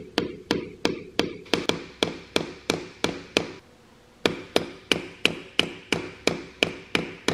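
Steady light hammer taps, about three a second, on the steel-capped end of a screwdriver wedged between a Kubota B5100 cylinder bore and its old cylinder sleeve, driving it in to split the sleeve for removal. The tapping stops briefly a little past halfway, then carries on.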